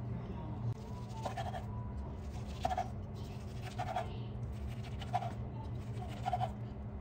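Chef's knife slicing through a roll of kimbap onto a wooden cutting board: about five cuts a little over a second apart, each a crisp crunch through the seaweed wrap ending in a short knock on the board, over a steady low hum.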